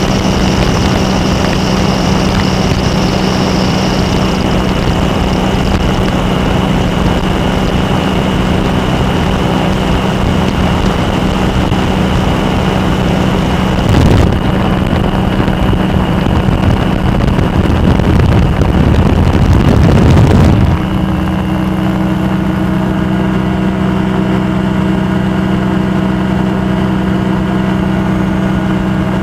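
Kolb Firefly ultralight's engine and propeller droning steadily in cruise flight. About halfway through, a louder rush of wind noise builds for several seconds and then stops suddenly, leaving the steady engine drone.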